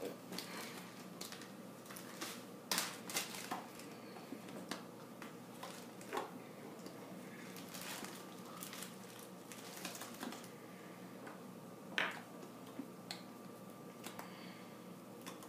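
Irregular clicks and taps at an uneven pace over a faint steady hum, with a louder pair about three seconds in and a single louder one about twelve seconds in.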